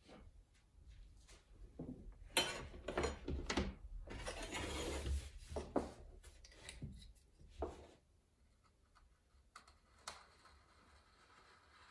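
Pottery tools and clay being handled on a work table: a run of light knocks and a rubbing scrape in the first half, then a few more knocks, quieter after about eight seconds with one last knock near ten seconds.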